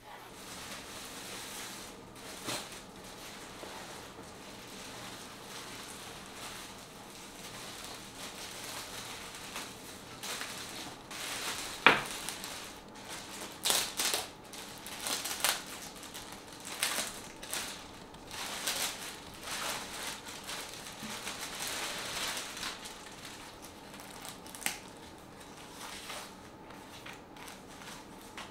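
Packaging being handled: a cardboard box opened, then a plastic bag and tissue paper rustling and crinkling in bursts as a handbag is unwrapped, with one sharp snap near the middle.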